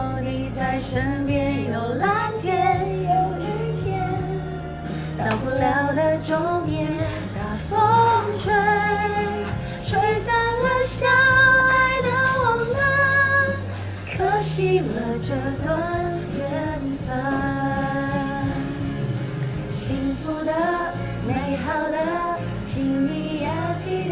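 A woman singing a pop-rock song over band accompaniment of bass and drums. She holds some notes with vibrato, and the singing grows louder about eight and eleven seconds in.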